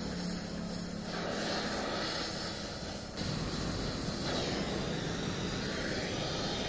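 Gas-welding torch flame hissing steadily as a fitting is welded onto a diesel tank. The sound shifts abruptly in tone a few times.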